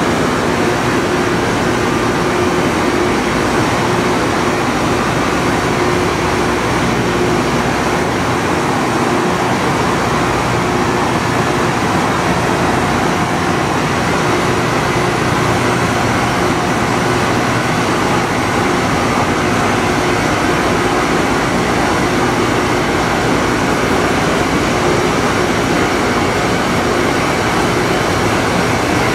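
Loram rail grinder at work, its grinding wheels cutting the top of the rails: a loud, steady grinding noise with a few steady hum tones running through it.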